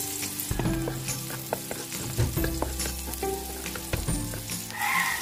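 Chopped onion and garlic sizzling in hot oil in a wok, with a wooden spatula stirring and knocking against the pan in short, irregular taps.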